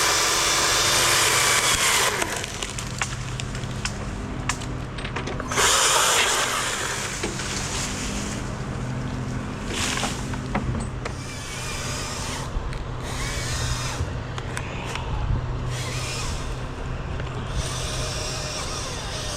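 Two-stroke chainsaw cutting at high revs, dropping off about two seconds in. A lower steady engine hum carries on underneath, with one short loud burst around six seconds in and scattered knocks.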